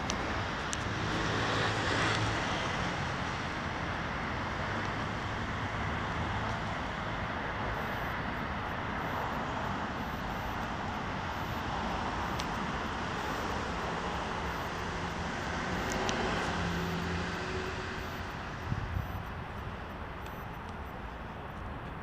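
Steady road-traffic noise, an even wash with no single vehicle standing out.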